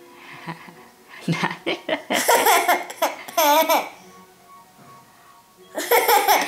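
Toddler laughing in loud fits, with a high, wavering squeal of laughter about three seconds in and another burst of laughing near the end. Faint music plays underneath.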